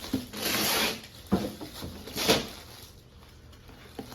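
Gift wrapping paper rustling and ripping in a burst in the first second, then two short rustles, then quieter.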